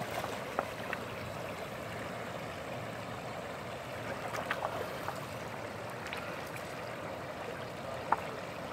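Steady rush of river water running over the shallows, with a few brief sharp ticks, the loudest near the end.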